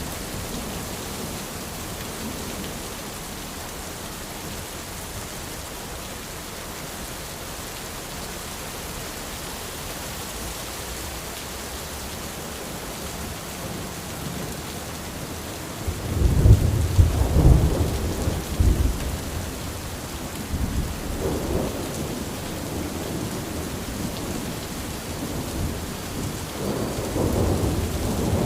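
Rain falling on an umbrella, a steady hiss. Low rumbles of thunder come in about halfway through, louder than the rain, and roll on twice more toward the end.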